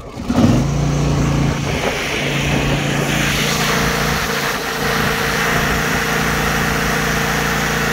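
25-horsepower Briggs & Stratton Extended Life Pro EFI V-twin engine of a Snapper 300Z zero-turn mower catching about half a second in, rising quickly in pitch, then settling into steady running.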